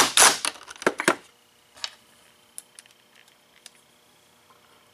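Cordless impact driver running a 1¼-inch pocket screw into a plywood brace in short loud bursts during the first second or so. After that only a few light handling clicks are heard.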